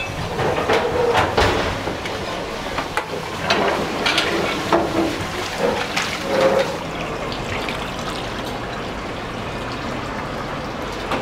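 Water running and splashing in an udon noodle-rinsing sink, with scattered clinks and knocks from bowls and utensils in the first part.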